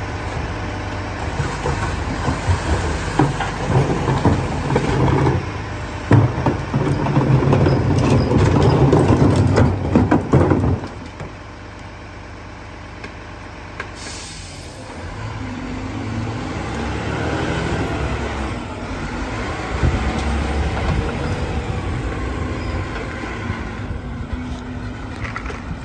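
Rear-loader garbage truck's engine revving hard while its hydraulic packer runs, cutting back sharply about ten seconds in. A short hiss of air follows, then the diesel engine pulls the truck away.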